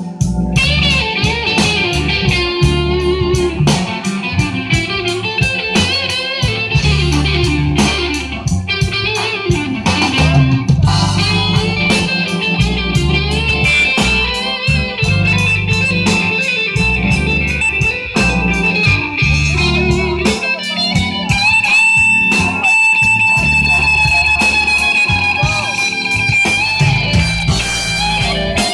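Live band playing: an electric guitar solo over drums and a low bass line. In the last several seconds the guitar holds one long high note.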